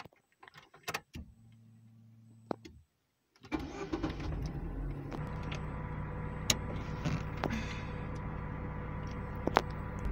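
Chevrolet car being started with the key: a few clicks and a short steady hum as the ignition is switched on, then about three and a half seconds in the engine starts and settles into a steady idle. A couple of sharp clicks sound over the idle near the end.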